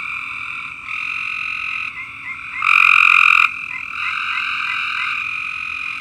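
Treefrogs calling in a steady chorus. One frog gives a much louder call lasting under a second, about halfway through, and faint short chirps sound in between.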